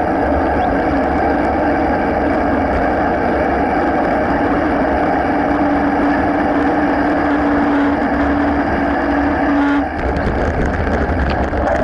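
Wind and tyre noise of a mountain bike ridden at speed on a paved path, picked up by a bike-mounted camera. A steady hum joins about four seconds in and stops abruptly near the end, followed by scattered rattling clicks as the bike rolls onto rougher ground.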